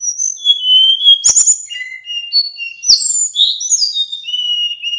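Male sikatan bambu (a blue flycatcher) singing a quick string of clear, varied whistled notes, several sliding down in pitch, with a few sharp clicks among them.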